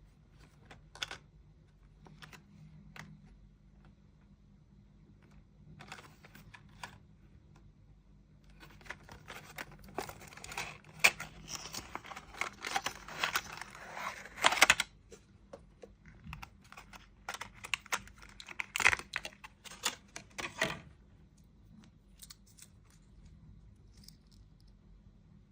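Packaging being handled and opened: scattered clicks and taps, then a few seconds of tearing and crinkling of card and plastic, followed by more clicks and rustles that stop a few seconds before the end.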